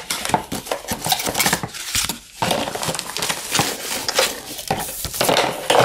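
Cardboard box and plastic packaging being handled. Irregular rustling, scraping and small knocks as the contents are pulled out, with a short lull about two seconds in.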